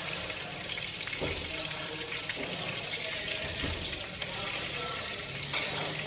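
Whole climbing perch frying in oil in a nonstick pan over low heat: a steady sizzle with small crackles. A single sharp tick about four seconds in.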